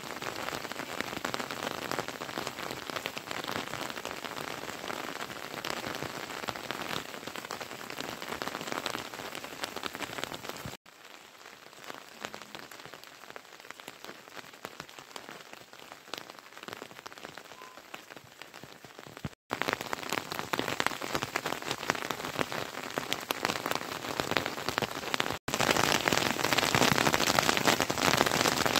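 Steady rain falling, heard as an even hiss of drops. It changes level abruptly at cuts about 11, 19 and 25 seconds in: quieter in the middle stretch and loudest near the end.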